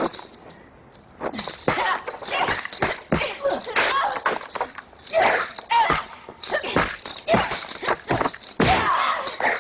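Martial-arts film fight sound effects: a fast string of punch and kick impacts and swishes, starting about a second in, mixed with the fighters' short shouts and grunts.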